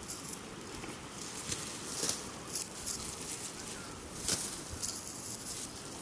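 Dry wheat stalks rustling, in irregular crisp swishes every half second to a second, as the crop is cut and handled by hand.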